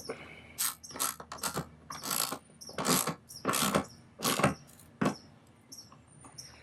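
Socket ratchet tightening a bolt, clicking in a run of about eight short strokes that stop about five seconds in.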